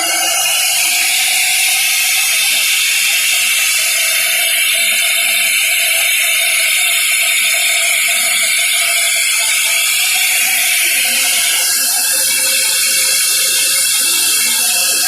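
Band saw running, a steady mechanical whine over a loud hiss that starts abruptly. About eleven seconds in the tone shifts lower as the load on the blade changes.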